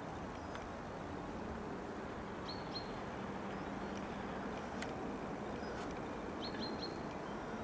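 Steady distant rumble of an electric multiple unit approaching along the line, with a small bird chirping twice in quick runs of three notes.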